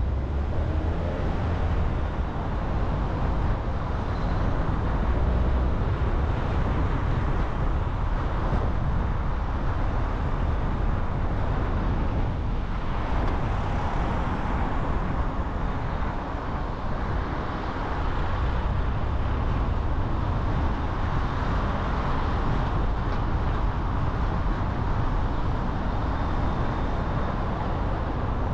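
Car driving through city traffic: steady engine and tyre road rumble, with a louder swell about twelve seconds in.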